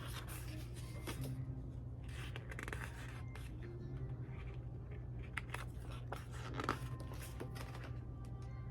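Paper and book rustling: pages and a book cover being handled, with irregular scrapes and a few small clicks, over a steady low hum.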